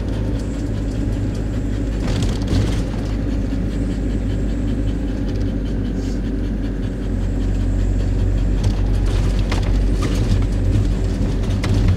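Motorhome on the move: steady engine and road rumble heard from inside the cab, with a few short clicks. It grows slightly louder about seven seconds in.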